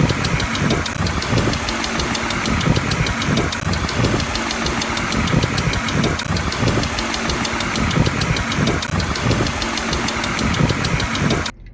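Car engine idling with a rapid, even ticking from its valve train: the sign of noisy hydraulic lifters. It cuts off suddenly near the end.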